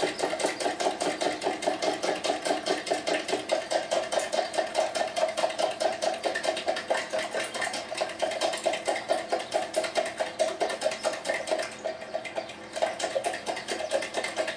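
Four eggs being beaten by hand in a plastic jug: a metal utensil clacking against the jug's sides in quick, even strokes, about five a second, with a short break near the end.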